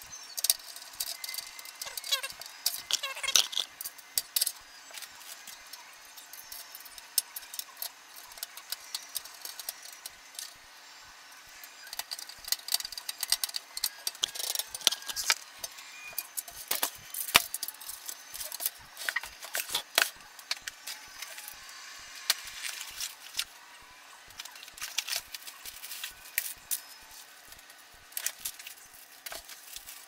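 Irregular metallic clicks, clinks and rattles of hands working on a metal computer case and its parts, in quick clusters with short gaps.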